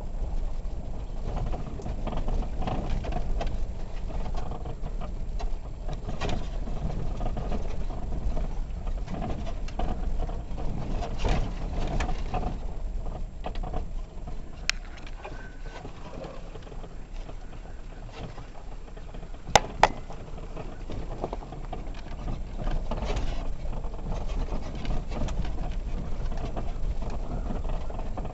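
Cabin of a VW T3 Syncro van driving over a rough gravel track: steady low engine and road rumble with scattered knocks and rattles from the body on the bumps, and two sharp knocks close together about twenty seconds in.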